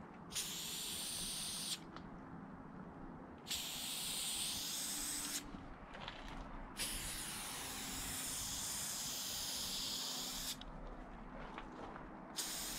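Aerosol spray-paint can hissing in separate bursts as a black outline is sprayed: three hisses of one to four seconds, the longest in the middle, and a short one starting near the end.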